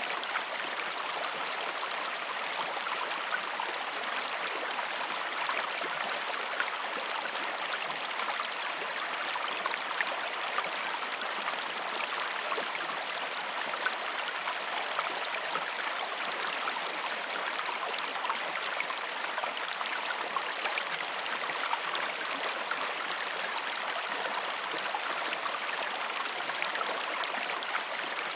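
A river flowing steadily, its water rushing and gurgling, with a fine crackle of small splashes throughout.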